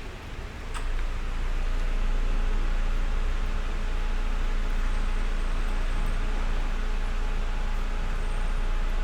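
Steady rain hiss. About a second in, after a brief click, a steady low rumble comes in and holds under it, louder than the rain.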